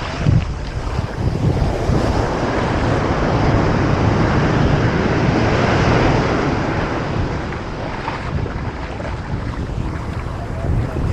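Ocean surf washing ashore in a steady hiss that swells in the middle and eases off, with wind buffeting the microphone and adding a low rumble.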